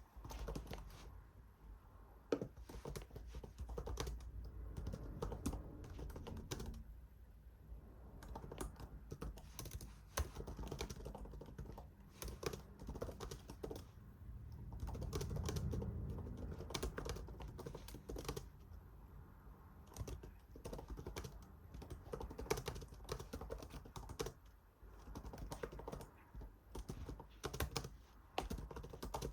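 Typing on a computer keyboard: irregular runs of key clicks with short pauses, over a low steady hum.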